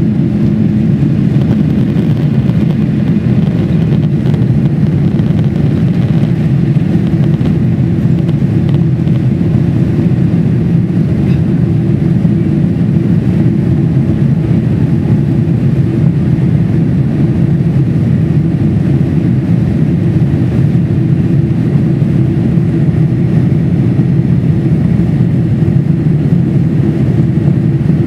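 Loud, steady cabin noise of a Boeing 747-400's four turbofan engines at takeoff thrust, heard from inside the passenger cabin as a low, even rumble with rushing air, through the takeoff roll and initial climb.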